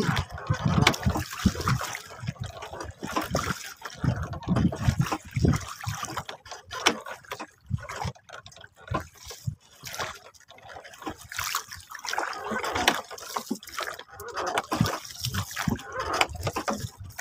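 Sea water sloshing and splashing against a small wooden boat's hull, with irregular small knocks and clicks.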